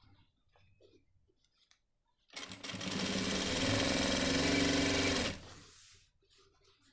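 Electric sewing machine stitching a shirt's folded hem. It starts a little over two seconds in, runs at steady speed with a fast, even stitch rhythm for about three seconds, then stops suddenly, leaving only faint rustling of the cloth.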